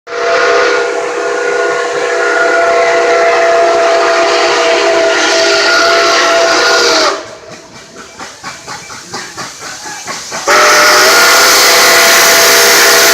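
Steam locomotive whistle blowing a long, loud blast of several tones at once for about seven seconds. It breaks off, and the locomotive's bell rings with about two or three strokes a second. Then the whistle sounds again, with a slight dip in pitch as it opens.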